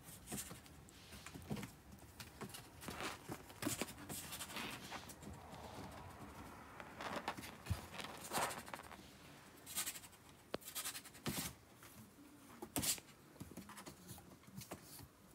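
Faint, scattered rustling and scuffling of kittens clambering over pillows, bedding and cardboard, with soft kitten mews.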